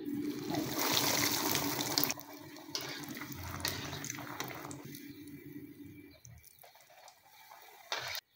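Breadcrumb-coated bread ball sizzling as it goes into hot ghee and deep-frying in the pan. The sizzle is loudest for about the first two seconds, then quieter, and it fades away about six seconds in. A brief knock comes near the end.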